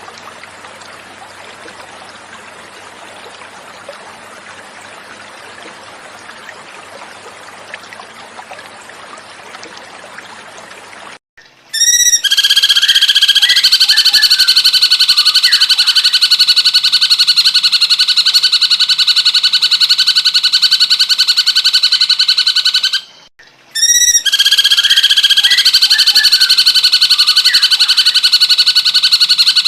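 Running water trickles steadily for about eleven seconds. Then a cucak cungkok starts singing loudly, a fast, unbroken buzzing trill held on a steady pitch. It breaks off briefly near the end and starts again.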